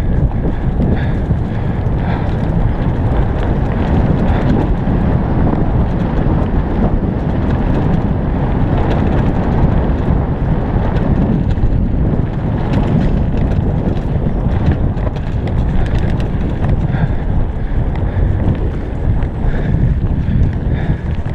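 Heavy wind buffeting a helmet-mounted camera's microphone while a bicycle rolls quickly down a dirt trail, with tyre rumble and scattered small rattles and clicks from the bumps.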